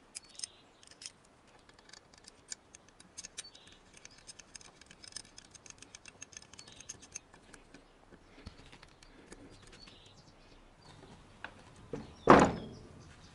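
Small metallic clicks and taps as a valve spring compressor is handled and bolted onto a Renault Logan cylinder head, then one loud metal clank about twelve seconds in as the compressor lever is pressed down on a valve spring.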